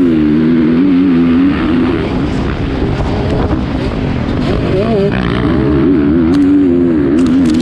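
Dirt bike engine running with its pitch wavering up and down as the throttle is worked, with a brief higher rev about five seconds in.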